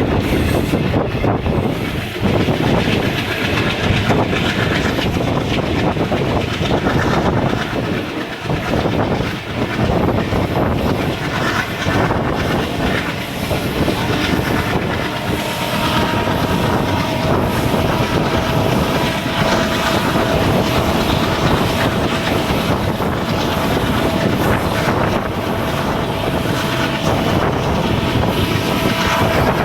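An ALCO WDM3A diesel locomotive's turbocharged 16-cylinder ALCO 251 engine chugging as it accelerates, with the clatter of wheels over rail joints. A steady tone joins about halfway through.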